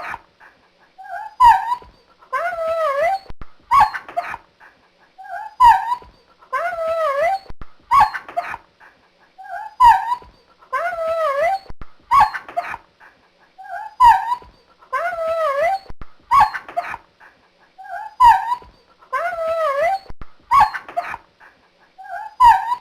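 Dog yelping and whimpering in pain: a sharp yelp, then a wavering, drawn-out cry, the same sequence repeating about every four seconds.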